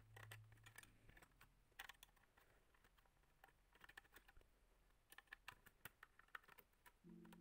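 Faint scattered clicks and ticks of a small screwdriver turning screws out of a car DVD player's sheet-metal casing. Quiet background music fades out about a second in and comes back near the end.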